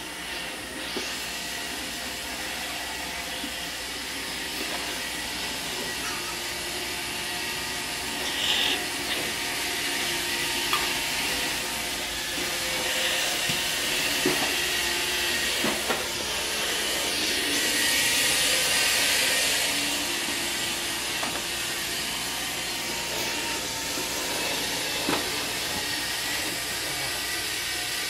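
Roomba robot vacuum running on a tile floor: a steady whirring hiss from its vacuum motor and brushes, with a few short clicks and knocks, growing louder for a few seconds a little past halfway.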